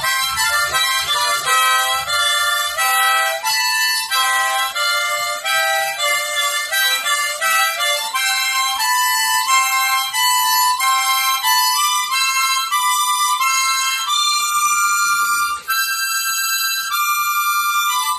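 A 1972 Pacemaker harmonica is being played as a melody. In the first eight seconds it gives quick changing notes with several sounding together, then it moves to higher, longer held notes, with one brief break late on.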